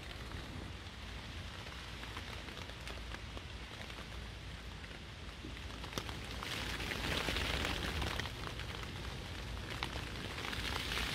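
Rain pattering on a nylon tent fly, heard from inside the tent: a steady hiss that swells louder for a couple of seconds about six seconds in and again near the end, with a few sharp ticks of single drops.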